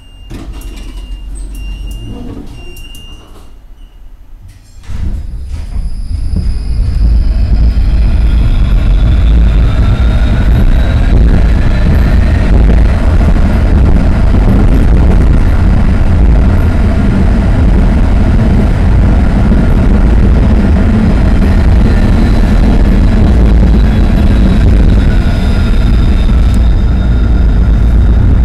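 An electric tram stands with a few short electronic beeps, then about five seconds in it pulls away. The traction motors whine, rising in pitch as it accelerates, and this settles into a steady, loud rumble of wheels running on the rails.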